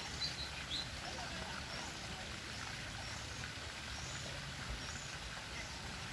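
Steady outdoor background noise with a few short, high chirps from small birds, the sharpest just at the start.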